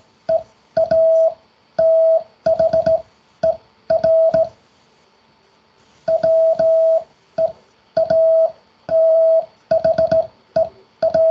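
Morse code sent by hand on a straight key: a steady mid-pitched sidetone beeping in dots and dashes, with a sharp click at each key press and release. It spells the word "weather", sent twice with a pause of about a second and a half between.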